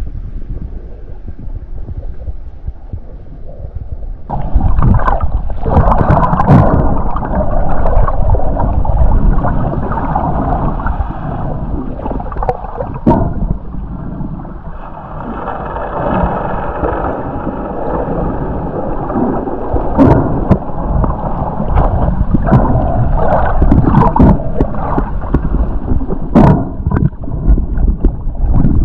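Muffled underwater sound picked up by an action camera in its waterproof housing: water rushing and gurgling around it as the diver swims. It gets louder about four seconds in, with a few sharp knocks along the way.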